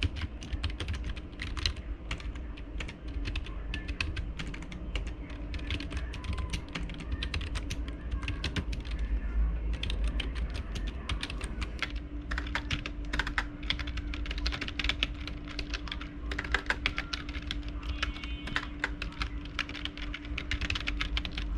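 Typing on a Walton plastic-bodied USB keyboard: a quick, uneven run of key clicks, with a brief pause about nine seconds in.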